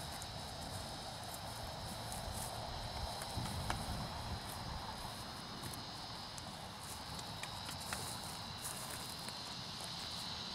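Steady high-pitched insect chorus, with a few soft scattered clicks and a low rumble underneath.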